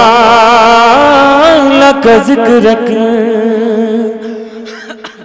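A man singing a naat, drawing out a long wavering note with a steady tone held beneath it, which fades away over the last couple of seconds.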